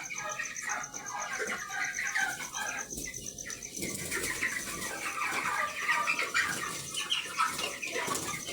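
A flock of four-week-old chickens chirping and peeping continuously, many short calls overlapping.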